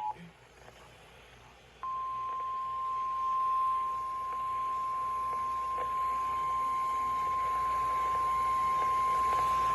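NOAA Weather Radio 1050 Hz warning alarm tone: one steady high-pitched tone that starts suddenly about two seconds in, after a near-silent gap. It is the signal that a warning broadcast, here a tornado warning, is about to follow.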